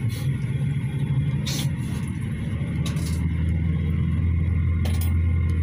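Cabin noise inside a GAZelle Next minibus on the move: a low engine and road drone, with a few short rattles from the body. About halfway through the drone drops lower and becomes steadier.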